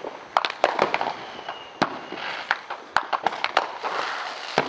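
Fireworks and firecrackers going off: many sharp bangs and pops in quick, irregular succession over a steady hiss.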